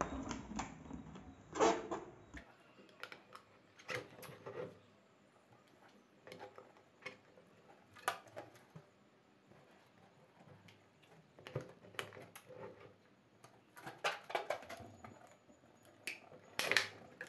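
Scattered light taps, rubs and crinkles from hands handling a rubber balloon pressed onto a plastic water bottle, coming at irregular moments with quiet stretches between; the clearest come near the end.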